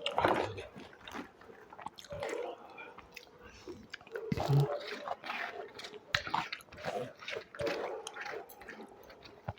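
A person chewing and biting mouthfuls of street food close to the microphone: irregular crunchy clicks and wet mouth sounds.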